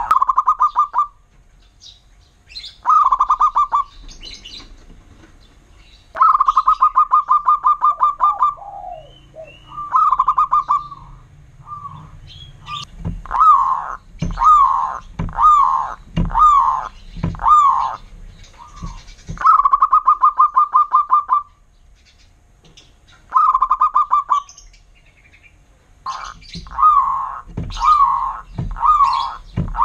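Zebra dove (perkutut) singing: loud rolling cooing trills, each a second or two long, repeated with short gaps. About halfway through and again near the end, runs of separate clipped coo notes come at about one a second.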